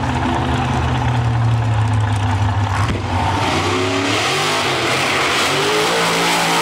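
Drag car's V8 engine held at steady revs on the start line, then launching at full throttle about three seconds in, its pitch climbing in several rising sweeps.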